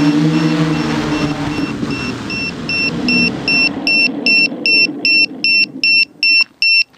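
An engine running, fading out over the first few seconds, while a high electronic beeping repeating about two and a half times a second grows louder and is left alone in the second half.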